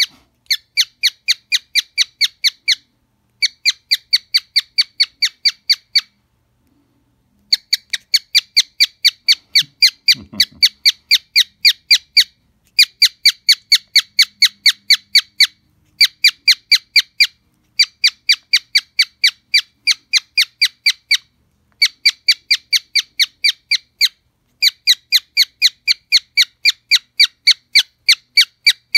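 Cockatiel chirping at its own reflection in a small mirror: a fast, even run of identical sharp, high chirps, about four a second, in runs of a few seconds broken by short pauses.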